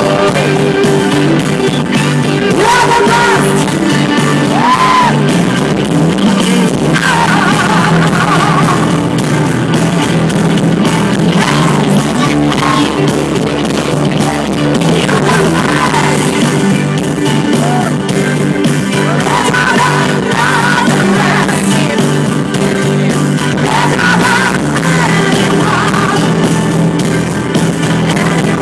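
A woman singing a pop song into a microphone over loud backing music, heard from the audience in a large hall.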